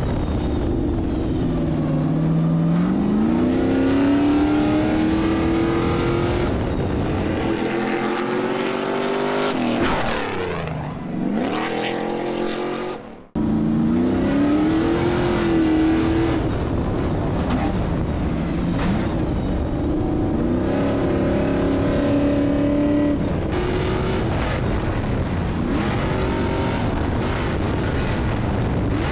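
Stadium Super Truck's V8 engine heard from inside the cab under race conditions, its pitch climbing under acceleration and dropping back at shifts and braking, over and over. A little under halfway through the sound dips and cuts off abruptly, then the engine comes straight back in.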